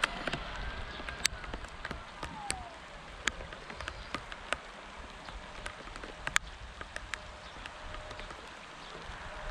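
Light rain: scattered raindrops tick sharply and irregularly close to the microphone over a soft, steady hiss of rain.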